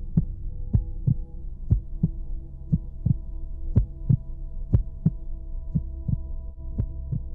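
Heartbeat sound effect: a double thump about once a second, over a held drone of several steady tones.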